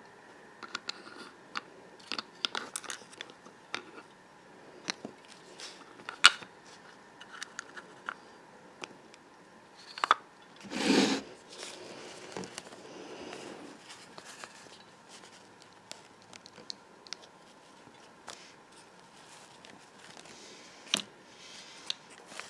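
Small plastic toy figures and props being handled by hand: scattered light clicks and taps, a sharp louder click about six seconds in, and a louder rustling burst about eleven seconds in, like paper or fabric being crumpled.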